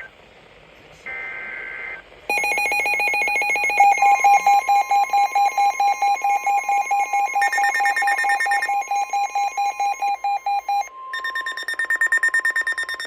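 Several NOAA weather radios sounding a warning alert: a short burst of SAME header data tones about a second in, then the radios break into rapid electronic beeping, about four beeps a second. From about four seconds in, the steady 1050 Hz weather radio warning tone sounds beneath the beeping, and the beeping changes pitch near the end.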